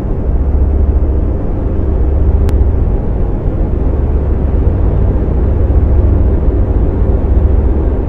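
A steady low rumble with a hiss above it, and a single short click about two and a half seconds in.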